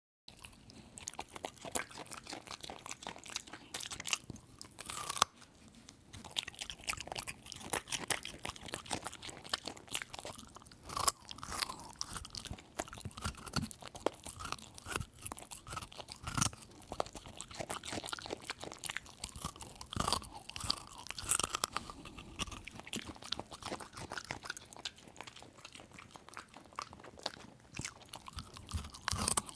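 A dog eating greedily, crunching and chewing its food in quick, irregular bites.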